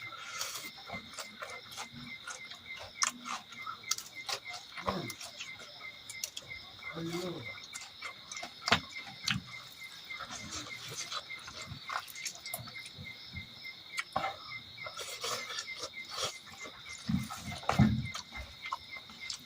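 Close-up eating sounds: chewing and mouth smacks on curry and rice, many short wet clicks with a few heavier bites, the loudest near the end. Behind them runs a steady high chirring of insects.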